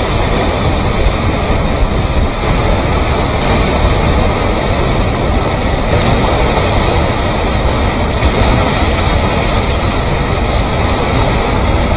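Debris flow of mud and rocks moving down a channel, a steady, loud noise of tumbling stones and churning slurry.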